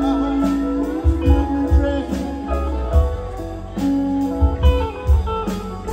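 Live band playing an instrumental passage: electric guitars and steel guitar over bass, keyboard and drums.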